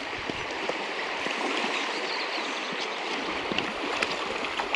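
River water flowing over a stony riverbed: a steady rushing, with a few faint ticks.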